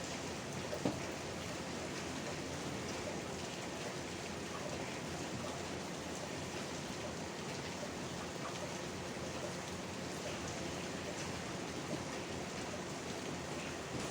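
Steady rain falling, an even hiss, with a single small tap about a second in.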